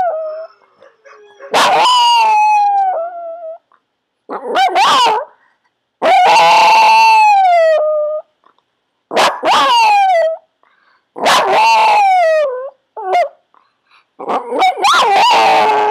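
Yorkshire terrier howling, about six drawn-out howls with short pauses between them, each sliding down in pitch at its end.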